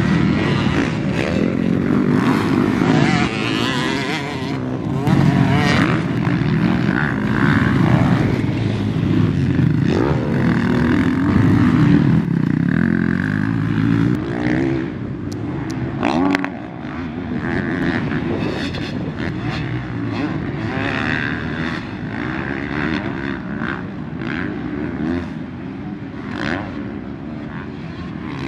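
Several motocross motorcycles running on a dirt track, their engines revving up and down as they accelerate, jump and shift gears. The sound is louder in the first half and a little lower later on.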